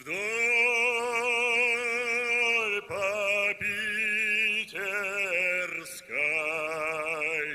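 A man singing solo, holding long notes with a strong, even vibrato. The first note is held for nearly three seconds, followed by shorter sung phrases with brief breaths between them.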